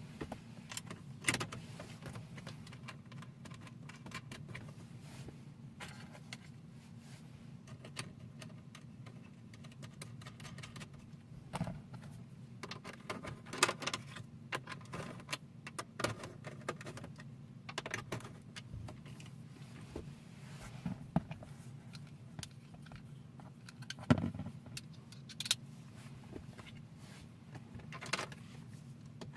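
Scattered small clicks, taps and light metallic rattles of plastic trim pieces and screws being handled and fitted into a car's centre console. A steady low hum runs underneath.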